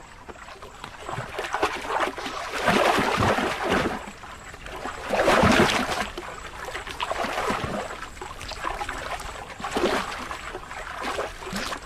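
Water splashing and sloshing as crocodiles thrash and roll in the feeding roll, tearing pieces from a carcass. It comes in irregular surges, the biggest about five and a half seconds in.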